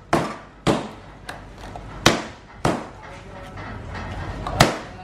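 Heavy kitchen knife chopping through a sturgeon's body onto a plastic cutting board: about five sharp knocks at uneven intervals, with a few lighter taps between them.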